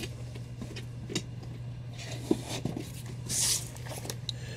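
Comic books being handled and lifted out of a cardboard shipping box: a few light knocks and a short papery rustle about three seconds in, over a steady low hum.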